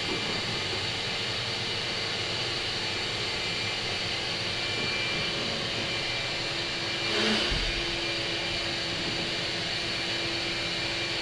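Steady rushing noise of running shop machinery or an air tool, held at an even level. A faint steady hum joins about six seconds in.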